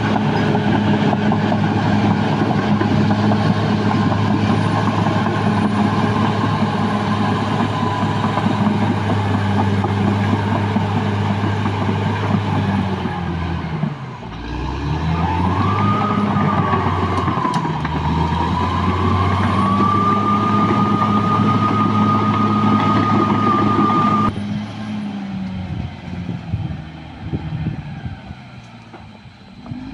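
Caterpillar D6R bulldozer's diesel engine running hard with a high, wavering whine over it. The engine note sags about 14 seconds in and climbs back, and about 24 seconds in the sound drops off suddenly to a quieter, uneven running.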